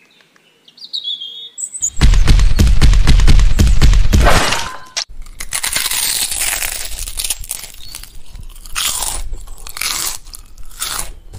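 Crunchy chewing sound effect of cattle munching grass, starting about two seconds in. It is loudest and densest for the first couple of seconds, then goes on more softly as a run of crisp crunches.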